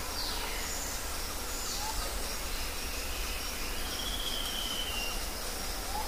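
Rainforest ambience: a steady background hiss with scattered bird whistles. A quick falling whistle comes right at the start, a short call about two seconds in, and a long drawn-out whistle around four to five seconds in.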